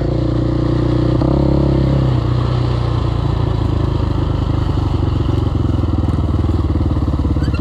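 KTM 525 XC quad's single-cylinder four-stroke engine running at low speed. The revs are held a little higher at first, then drop about two seconds in and settle into a steady, lower run.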